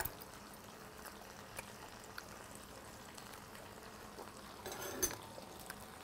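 Quiet tableware sounds: metal chopsticks clicking against a ceramic bowl, with a louder clink about five seconds in, over a faint steady hiss.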